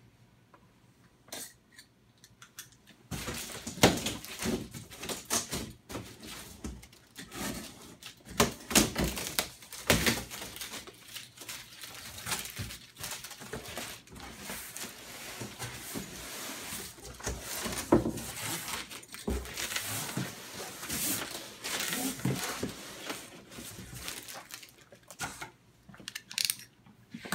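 Cardboard shipping box being opened by hand: packing tape tearing and cardboard flaps scraping and bending, heard as a long run of irregular crackling and sharp clicks that starts about three seconds in.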